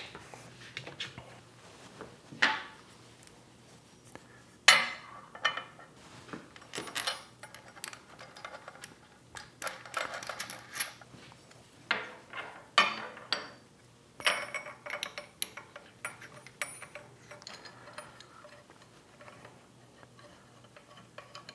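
Steel mill clamping hardware (strap clamps, step blocks and studs) clinking and clanking as it is set in the mill table's T-slots and onto a steel plate to clamp it down. Irregular sharp metal knocks, the loudest about five seconds in.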